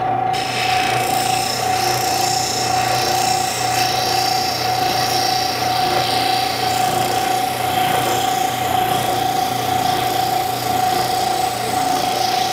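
Oscillating spindle sander running, its sandpaper-covered drum grinding against a block of wood to sand an inside curve. A steady rasping hiss over a steady whine, starting right at the beginning.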